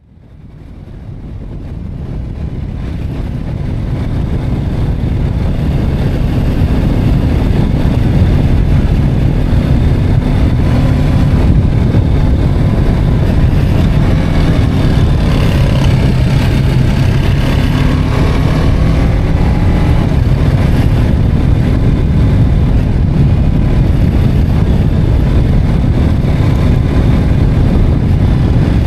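BMW G310R's single-cylinder engine running under way, with a dense low rumble. The sound fades in over the first few seconds, and the engine note rises and falls in pitch around the middle.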